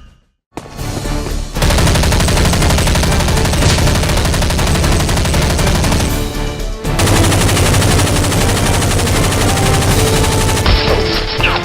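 Rapid automatic gunfire in two long sustained bursts with a short break between, over background music.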